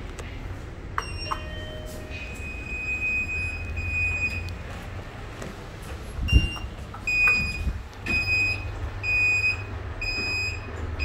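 Elevator car's electronic beeper. A few short tones at different pitches come about a second in, then a long steady beep. A knock and a short beep follow as a floor button is pressed. From there it beeps about once a second as the doors close.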